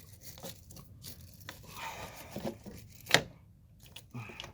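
Wire brush scraping corrosion off a car battery terminal connector in short, irregular strokes, with one sharp click about three seconds in.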